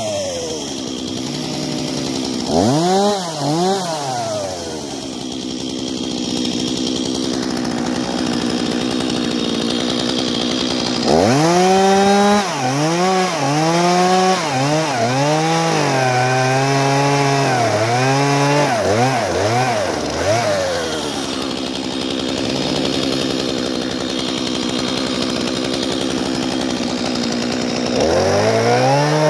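Stihl two-stroke chainsaw running: it idles steadily between bursts of quick throttle blips, with revving a couple of seconds in, a long run of rapid rev blips through the middle, and more revving near the end.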